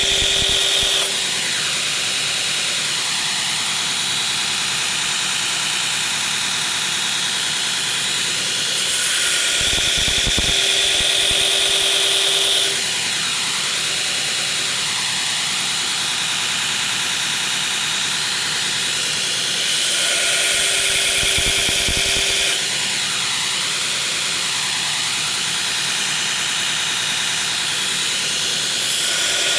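Belt grinder running steadily while a steel knife blade is ground on the belt to form its bevels. The sound grows louder and harsher for a few seconds about every ten seconds.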